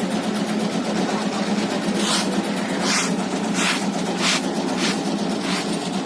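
Motor-driven tobacco cutting machine running steadily with a hum and a fast fine clatter. From about two seconds in, six short swishing strokes come roughly two-thirds of a second apart.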